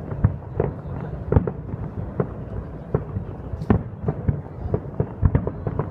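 Fireworks salute going off: about ten booms and bangs at irregular intervals, one or two a second.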